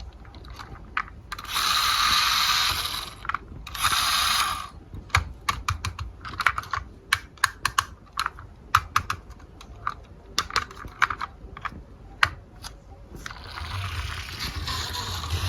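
Marbles rolling along a marble run track in two short runs, then a long stretch of irregular sharp clicks and clacks as marbles drop and knock down the run's pieces. Near the end, steady rolling starts again.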